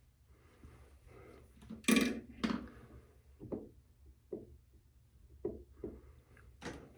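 Small objects being handled and set down on a hard surface: a sharp clatter about two seconds in, a second one just after, then several lighter knocks.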